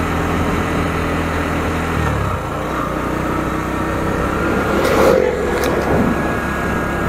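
Bajaj Pulsar NS 125's single-cylinder engine running while the motorcycle is ridden at a normal pace. The engine note shifts about two seconds in, and a couple of short sharp clicks come near the five-second mark.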